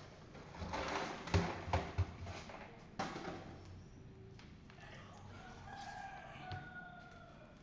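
A few sharp knocks with some clatter about a second in. Then, about five seconds in, a bird's long call lasting about two seconds, falling slightly in pitch.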